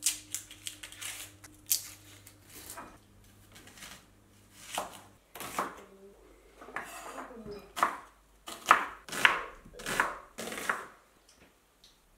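Onion being peeled with a knife, dry papery skin crackling and tearing, then a chef's knife slicing through onion onto a wooden cutting board in separate strokes, about one every half second to a second, through the second half.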